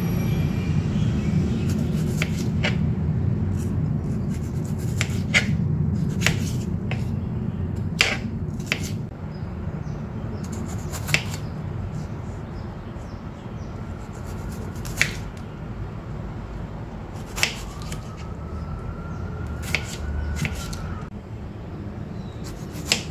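Kitchen food-prep sounds: sharp, irregular knocks and clicks of utensils, about a dozen of them, over a steady low hum.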